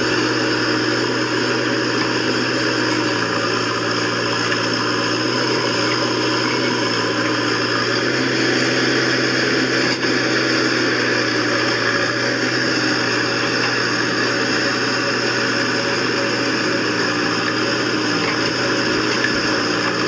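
JCB 3DX backhoe loader's diesel engine running at a steady pitch while the backhoe arm digs and swings, heard from inside the operator's cab.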